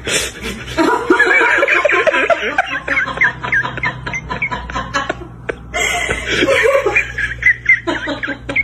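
A person laughing in rapid, high-pitched giggles, in two long stretches with a short break about five seconds in.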